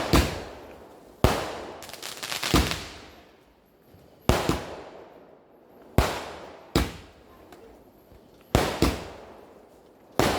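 Firecrackers going off: about ten sharp bangs at irregular intervals, each trailing off in a long echo.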